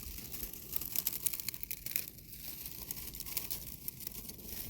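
Dense, irregular crackling and crinkling, many fine clicks close together, like dry grit or brittle material being worked.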